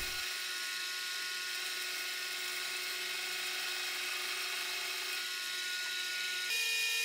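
Mini lathe running while the tool cuts an aluminium cone, a steady whine of motor and cut. About six and a half seconds in the tone shifts and the sound gets a little louder.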